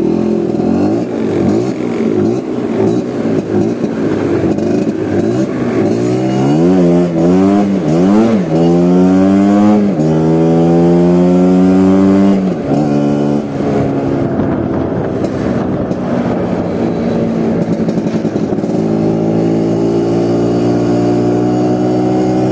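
Vespa scooter engine running while riding: its pitch climbs in several short rises as it accelerates through the gears, holds high for a couple of seconds, drops sharply a little after twelve seconds in, then settles to a steady cruise.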